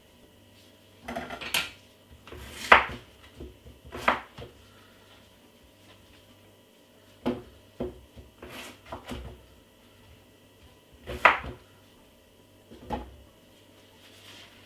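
Knife chopping a peeled beetroot into small pieces: about eight separate, irregularly spaced cuts knocking against the surface beneath.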